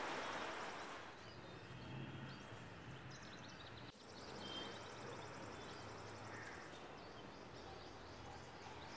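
Faint background ambience with a few brief, distant bird chirps.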